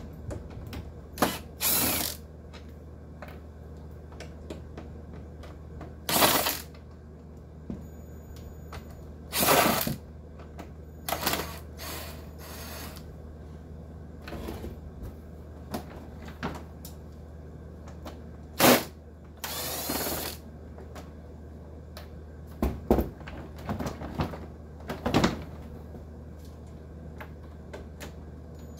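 Dehumidifier being taken apart: scattered short runs of a power driver backing out screws, with clicks and knocks of plastic and metal parts being handled. A steady low hum sits underneath.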